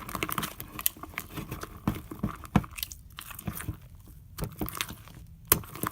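A spoon stirring sticky slime in a bowl just after borax activator has been added: irregular wet squelching and clicking, with a quieter stretch past the middle.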